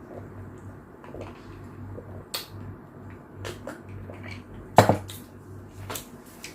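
Close-miked mukbang eating sounds: scattered soft mouth and chewing clicks over a steady low hum, with one sharper click or knock a little past the middle.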